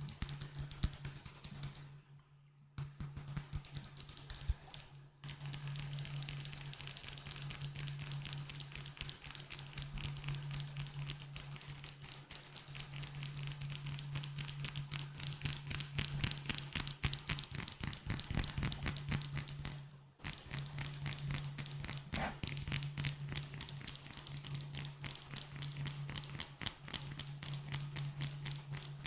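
Rapid tapping on glass bottles: a dense run of quick, sharp taps, many a second, that stops briefly twice. A steady low hum runs underneath.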